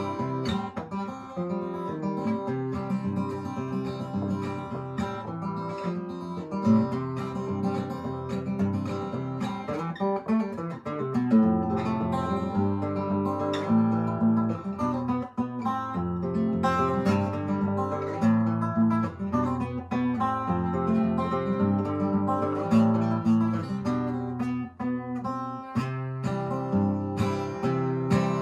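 Acoustic guitar music, plucked and strummed with a steady rhythm, as an instrumental stretch between sung verses.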